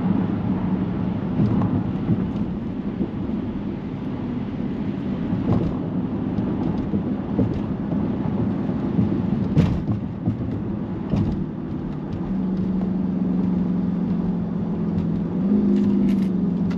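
Dodge Charger's HEMI V8 running while driving on a wet road, with tyre and road noise and a few short knocks. A steady engine tone settles in about three-quarters of the way through.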